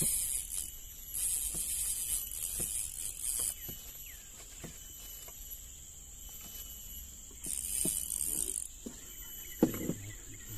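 Insects buzzing in a steady thin high tone, with louder hissing bursts of insect noise that come and go. A few faint knocks are scattered through it, one sharper knock near the end.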